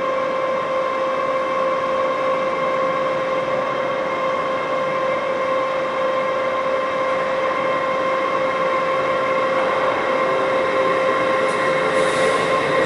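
Class 43 HST diesel power car running as the train pulls away, a steady high whine over the engine and running noise. A higher hiss comes in near the end.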